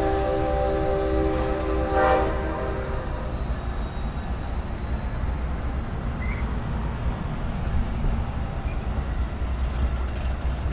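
Amtrak passenger train departing: the locomotive horn sounds a chord of several steady tones, swelling about two seconds in and stopping about a second later. Then the coaches roll past close by with a steady low rumble of wheels on rail and a few faint clicks.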